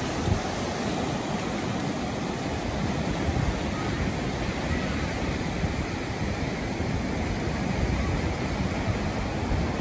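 Ocean surf washing steadily onto a beach, a constant hiss with a low rumble underneath.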